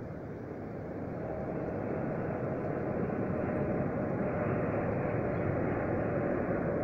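Distant vehicle rumble with a faint whine, growing louder over the first few seconds and then holding steady.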